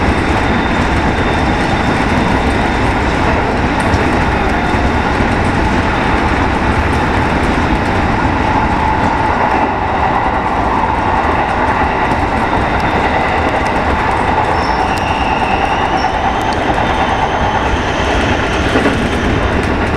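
Running noise of a JR West 207 series electric train at speed, heard from just behind the driver's cab: a steady, loud rumble of wheels on rail. A faint high whine joins it for a few seconds past the middle.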